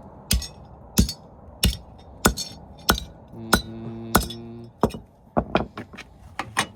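Repeated hammer blows on the sheet-metal trunk of an Infiniti G37 coupe, beating the metal out so the rear bumper fits. The strikes come about one every two-thirds of a second, then closer together near the end.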